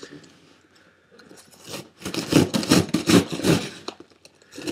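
Cardboard shipping box being cut and opened with a pocket knife: after a quiet start, a quick run of scraping and ripping strokes about two seconds in.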